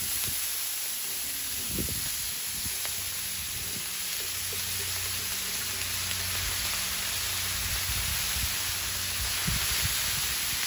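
Shredded cabbage sizzling as it is tipped onto a hot, oiled Blackstone flat-top griddle: a steady frying hiss.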